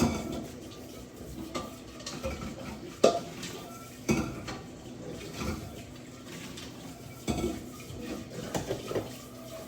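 Pots and dishes being handled: scattered clinks and knocks a second or more apart, the sharpest about three seconds in.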